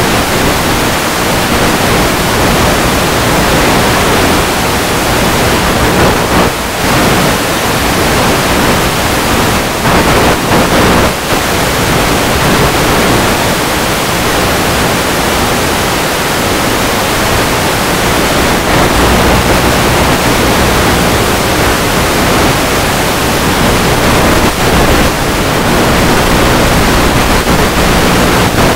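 Steady loud rush of wind over the onboard camera microphone of a Multiplex EasyStar 2 RC plane in flight, with a faint steady hum from its electric pusher motor underneath.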